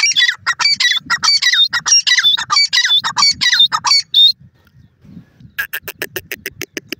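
Female grey francolin calling: a loud, rapid string of high, shrill notes, about five a second, each bending in pitch. After a pause of about a second it gives a quicker, quieter run of short clicking notes, about eight a second.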